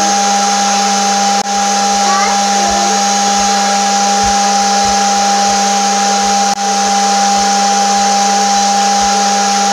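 Battery bubble machine's small fan motor running with a steady, loud hum.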